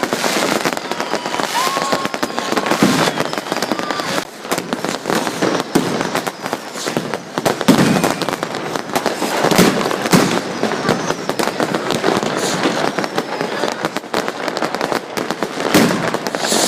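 Many fireworks and firecrackers going off at once: a dense, continuous crackle of small bangs with louder booms every few seconds and a few faint whistles.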